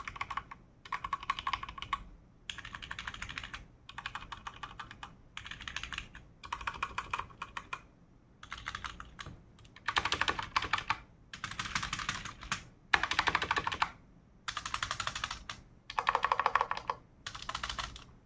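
Typing on computer keyboards in short bursts of rapid key presses: first an ordinary membrane keyboard, then, louder from about ten seconds in, the Defender Hawk GK 418 mechanical keyboard with Outemu Red linear switches.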